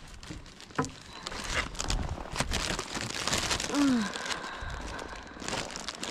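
Footsteps crunching through snow, with irregular crunches and clicks. About four seconds in, a short pitched sound slides down in pitch.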